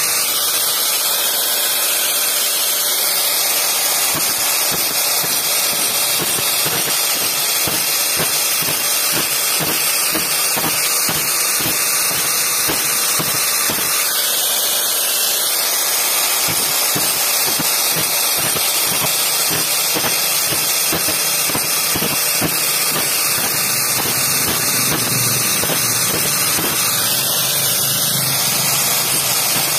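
Angle grinder fitted with an old tile cutting disc, grinding the teeth of a bandsaw blade: a steady high hiss with a dense run of small irregular ticks.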